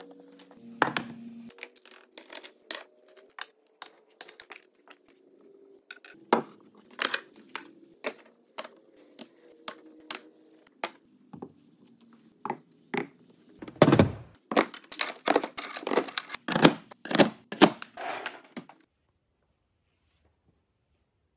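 Irregular clicks and clacks of metal and plastic tool parts being set by hand onto wall pegs and holders, such as a circular saw blade going onto its peg. The knocks come thicker and louder toward the end, then stop suddenly.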